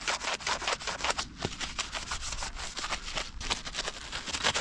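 Scrub Mommy sponge scrubbing a wet, soapy mountain-bike fork and the brake rotor and hub, a quick run of even back-and-forth rubbing strokes.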